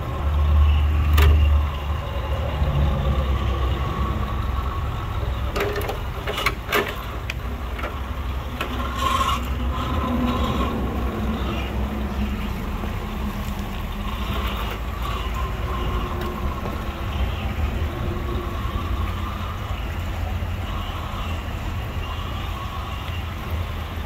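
Axial SCX10 II radio-controlled rock crawler driving over rocks: its electric motor and drivetrain running under a steady low rumble, with sharp clicks and knocks of tyres and chassis against rock, a cluster of them about six seconds in.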